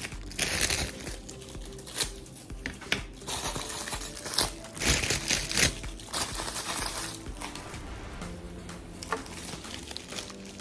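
Plastic packaging crinkling and rustling in irregular bursts as it is handled, over quiet background music.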